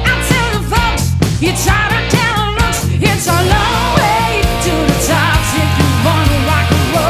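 Rock music with a singing voice over electric guitar, bass and a steady drum beat.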